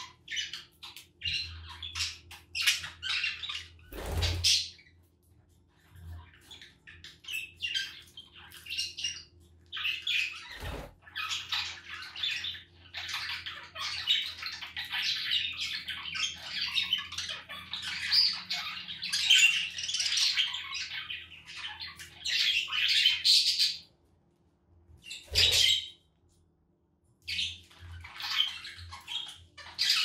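A flock of budgerigars chattering and warbling, one dense run of warble through the middle, broken by short pauses near the end. Three dull thumps stand out, a few seconds in, about eleven seconds in and near the end.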